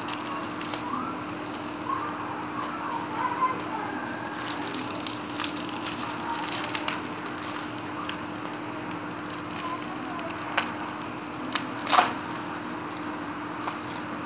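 Plastic courier mailer and clear plastic wrapping crinkling and rustling in the hands, with scattered sharp crackles, the loudest about twelve seconds in, over a steady low hum.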